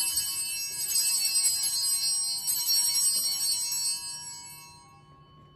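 Altar bells rung at the elevation of the host during the consecration: a bright cluster of high ringing tones that shimmers, then dies away about four to five seconds in.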